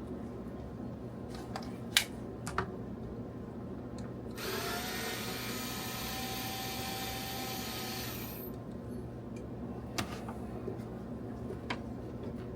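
Power drill running steadily for about four seconds, starting a few seconds in, with a few sharp clicks before and after it over a steady low hum.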